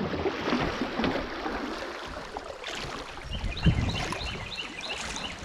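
Water rushing and splashing around a kayak running a fast riffle, with a few knocks from the boat. A quick series of high chirps comes about three and a half seconds in.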